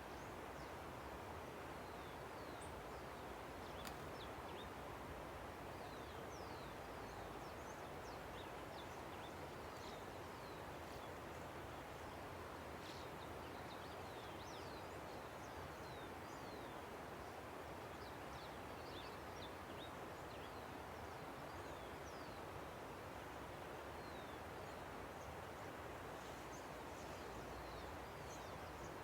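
A river rushing steadily, with many small birds chirping over it in short, high, quick downward notes scattered throughout.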